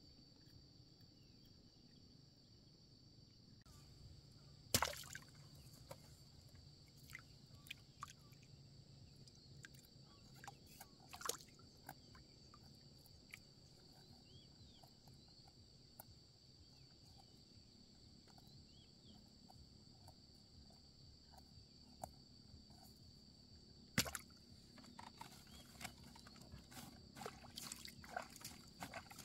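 Quiet lakeside scene with a steady high insect drone. Over it come scattered light clicks and knocks from handling a fishing net and fish in a bamboo boat, with two sharper knocks, one about five seconds in and one near the end.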